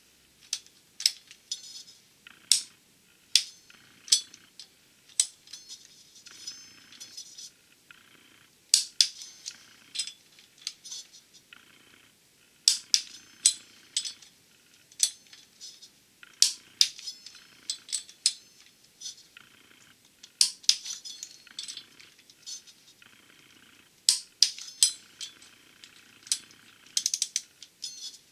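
Ratchet and torque wrench with a metal socket working the flex-plate bolts on the crankshaft hub: irregular sharp metallic clicks and clinks, some in quick runs of ratchet clicking, with the socket knocking against the bolts and plate.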